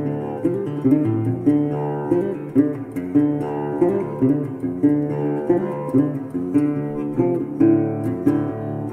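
Background music: acoustic guitar strummed in a steady rhythm, chords changing every second or so.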